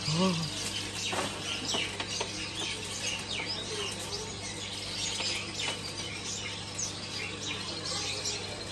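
Many small caged birds chirping and twittering constantly, with quick short calls overlapping one another, over a steady low hum.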